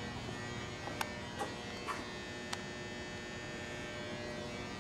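A steady electrical hum and buzz, with four sharp light clicks in the first half.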